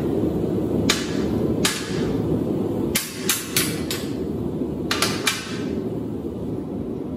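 Steel-on-steel clanks as a hot flat bar and locking pliers knock against a scrolling jig and a steel welding table while a forged scroll is worked off the jig. The clanks are sharp and ringing, about nine of them in irregular clusters, over a steady low rushing noise.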